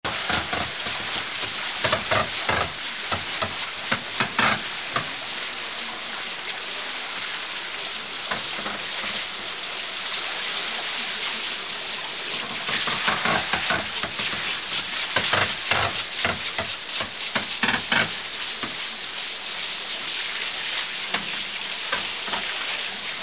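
Water pouring onto and splashing off the buckets of a turning wooden overshot water wheel, a steady rushing patter, broken by irregular knocks in two clusters, early on and again in the middle.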